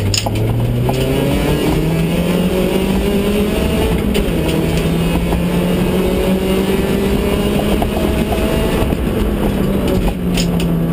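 Ford Fiesta ST rally car's engine heard from inside the cabin, pulling under load: the revs climb over the first couple of seconds, then hold with small rises and dips. A few short knocks come through, one about four seconds in and a couple near the end.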